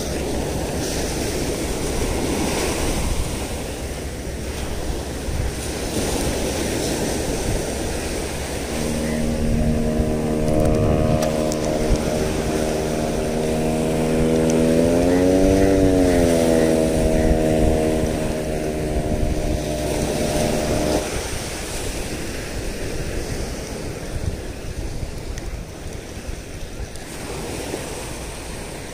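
Small waves washing onto a sandy beach, with wind on the microphone. For about twelve seconds in the middle, a steady low droning hum joins in, rising briefly in pitch and falling back about halfway through, then cutting off.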